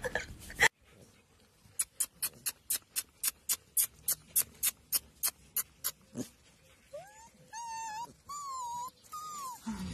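A rapid, even series of crisp high ticks, about four or five a second, for several seconds. Then a golden retriever puppy whines in a few high cries that rise and bend in pitch.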